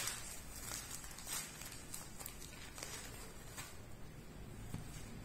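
Plastic courier mailer bag crinkling and rustling as it is handled and opened, in irregular short bursts that die down near the end.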